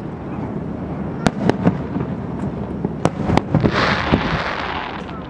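Aerial firework shells bursting: several sharp bangs over a steady low rumble, then a spell of dense crackling hiss a little past the middle as glittering stars burn out.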